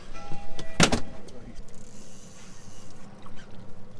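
Steady noise of a boat out on open water, with one sharp, loud knock just under a second in.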